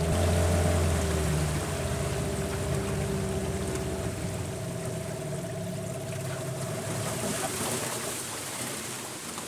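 A small fishing boat's motor running and easing off. Its low drone drops away about one and a half seconds in, while a steady whine carries on and stops near the end, leaving a soft hiss.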